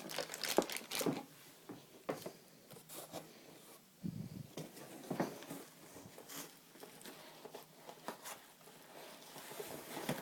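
Laptop box packaging being handled as parts are pulled out: irregular short rustles and scrapes.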